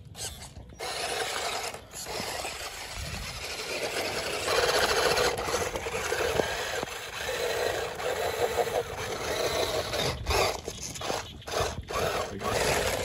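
Small electric drive motors and gearboxes of toy RC rock crawlers whirring as the trucks climb over dirt and rocks, with the tyres scraping and crunching on loose soil. The whirring comes in spurts, with several brief breaks near the end.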